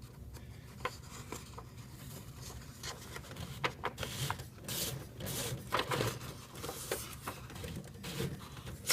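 A sheet of paper being fed into a Smith Corona Display 900 electronic typewriter: paper rustling and rubbing against the platen and paper guides, with scattered small plastic clicks and one sharp click at the end.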